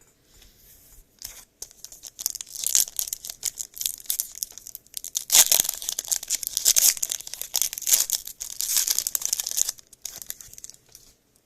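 A trading-card pack's foil wrapper being torn open and crinkled, in a crackling stretch that is loudest about halfway through.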